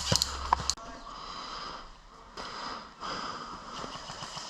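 The last few shots of an airsoft gun, sharp clicks, stop under a second in. Then comes heavy breathing and sniffing close to the microphone, in uneven swells.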